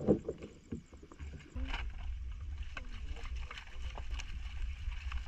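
Plastic bag and fish being handled: scattered crackles and clicks. A steady low rumble starts about a second and a half in and is the loudest sound.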